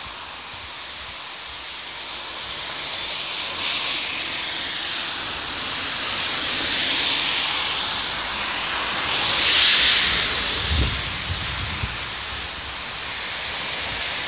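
Steady hiss of rain on a wet street, swelling and fading, loudest about ten seconds in.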